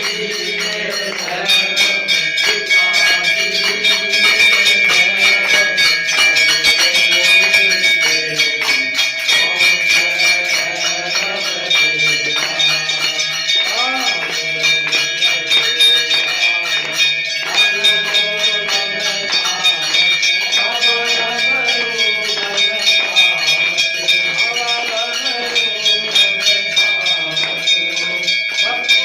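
Temple bells ringing rapidly and without pause during a Hindu aarti, their strikes running together into a steady ringing. Voices sing or chant the aarti underneath.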